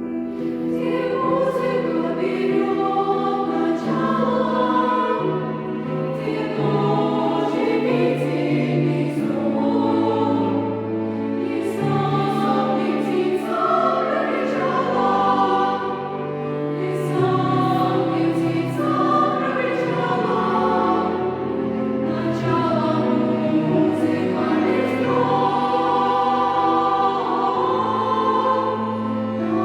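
Children's choir singing a song, accompanied by cello and piano, with long held low notes under the voices.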